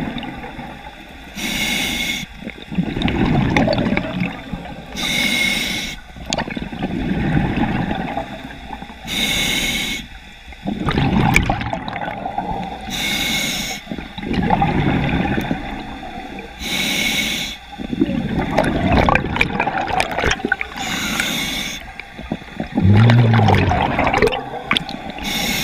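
Scuba diver breathing through a regulator underwater: a short hiss of inhaling about every four seconds, each followed by a longer gurgling rush of exhaled bubbles.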